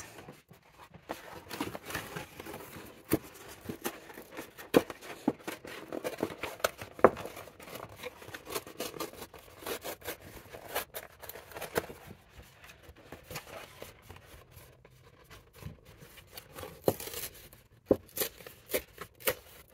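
Cardboard cereal box being handled and torn apart: scattered taps, knocks and crinkling, with sharper knocks every second or two.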